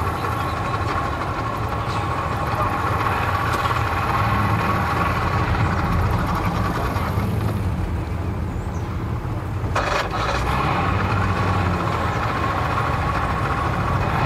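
Pontoon boat's outboard motor idling steadily, with a single sharp knock about ten seconds in.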